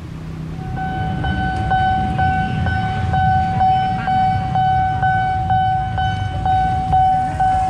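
Railway level-crossing warning bell ringing, a repeated electronic ding about twice a second, over a steady low rumble.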